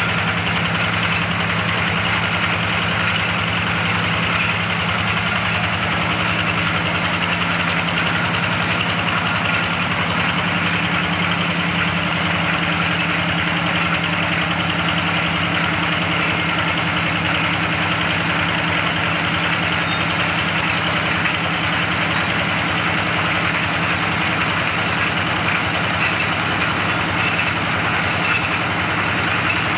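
Small horizontal single-cylinder diesel engine running steadily with a rapid, even beat, driving a water-well drilling rig's belt and bevel-gear rotary table.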